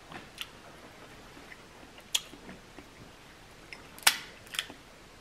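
Snow crab legs being cracked and picked apart by hand while eating: a handful of sharp shell cracks and clicks, the loudest about four seconds in, with soft eating sounds between.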